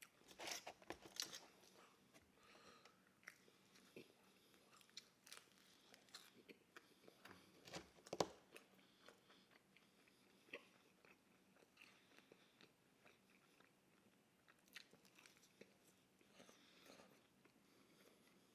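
Quiet close-up chewing of pizza: soft mouth smacks and crunches of crust scattered through, with one louder crunch about eight seconds in.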